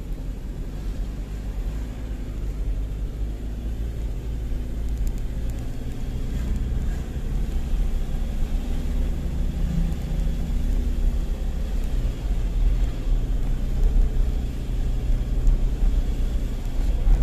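A car driving along a road: steady low engine and road rumble that grows a little louder through the second half.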